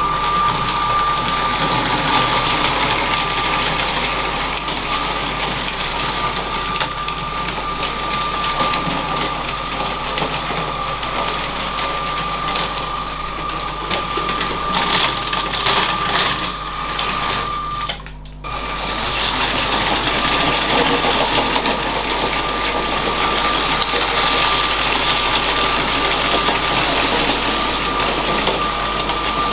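LEGO train motor running, a steady high whine over the clatter of plastic wheels on plastic track. The sound drops out briefly about 18 seconds in, then resumes as before.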